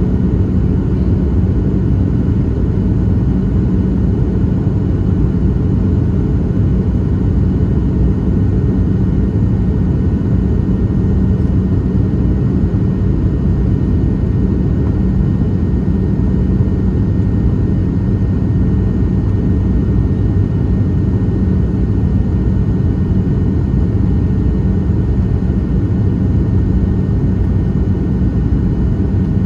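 Cabin noise of a Boeing 737-700 on approach, heard from a window seat beside the wing and its CFM56-7B engine: a steady low rumble of airflow and engine with a constant hum, unchanging throughout.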